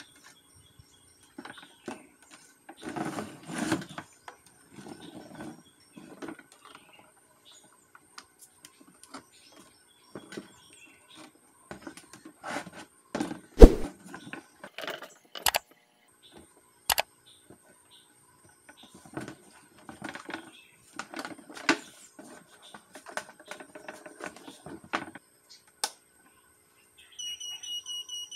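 Handling noise from an electronic weighing scale being put back together and moved: scattered clicks, knocks and rustles of plastic casing and power cable, with one loud knock about halfway. Near the end, the Goldbell scale's buzzer gives a rapid string of high beeps as it powers on, its display lighting every segment in the start-up test.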